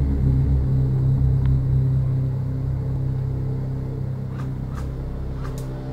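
Deep, steady bass drone from a dark background soundtrack, loudest at the start and slowly fading, with a few faint clicks near the end.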